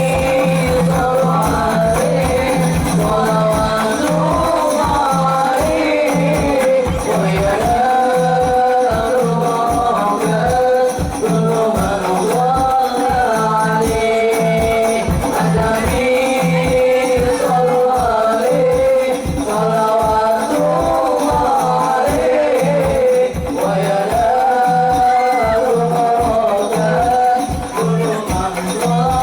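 Sholawat devotional music: a sung melody over a fast, steady beat of rebana frame drums.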